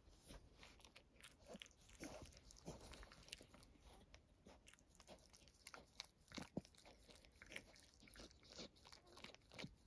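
Mother dog licking her newborn puppy to stimulate it: faint, irregular licking and mouth clicks.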